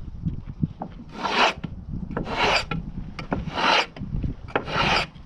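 Four brisk sweeping strokes across the surface of a freshly sawn Douglas fir board, about one a second, each a short swish: sawdust being brushed off the cut.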